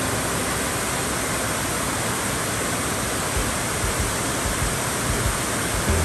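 Water pouring steadily over a stepped waterfall and rushing through the rocky stream below: a dense, even hiss of falling water with no changes.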